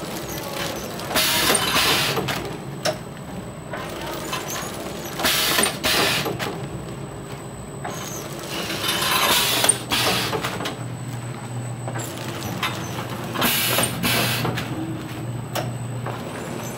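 Semi-pneumatic cup-filler pouch packing machine running, with a hiss of compressed air about every four seconds as its pneumatic cylinders cycle, and clicks and mechanical clatter in between.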